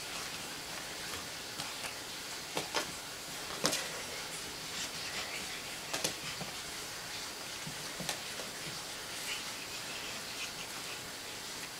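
Steady hiss of background noise with a handful of short soft thumps and scuffs, about five of them in the first eight seconds, as a pug puppy pounces and scrambles at a cat on carpet.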